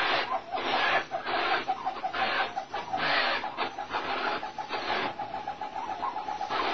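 Captive snowcock calling: a fast, steady run of clucking notes, with harsher notes breaking in about once a second.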